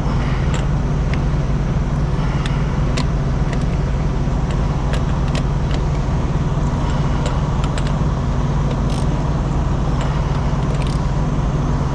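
Truck engine idling steadily underneath scattered metallic clicks and clinks of a hand wrench tightening the nuts on a truck's axle shaft flange.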